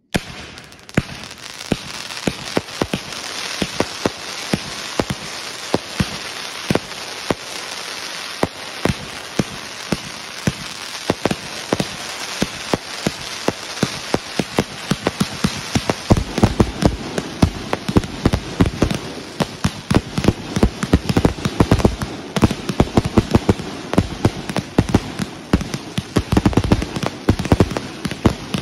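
Backyard aerial fireworks firing continuously: a dense crackling hiss packed with rapid sharp pops. About halfway through they build into heavier, louder bangs coming thick and fast.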